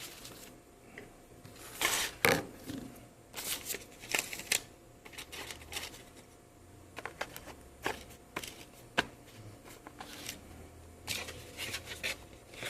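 Hands handling a new smartphone and its plastic packaging: scattered short rustles, scrapes and small clicks.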